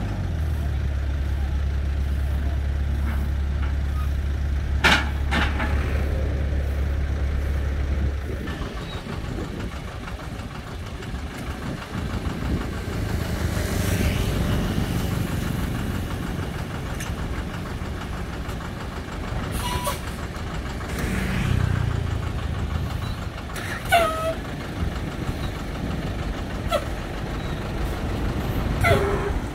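Diesel engine running steadily at idle, a deep hum that stops abruptly about eight seconds in. After it comes the working noise of an excavator loading a dump truck: engine sound with several sharp knocks and clanks.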